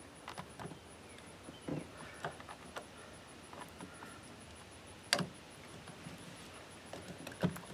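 Faint, scattered clicks and taps of hand work on a jack plate actuator's brush cap, with one sharper click about five seconds in and another near the end.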